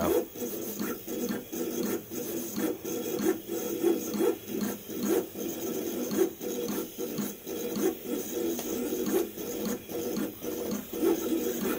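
Vevor 28-inch vinyl cutter plotting with a pen on paper: the carriage motors whine in quick, constantly changing strokes as the head darts about, with many short clicks throughout.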